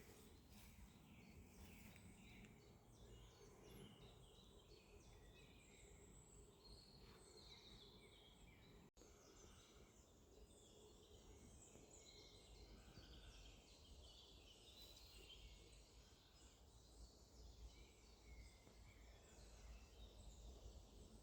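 Faint birdsong in woodland: small birds chirping and singing in short phrases over a low, steady background rumble.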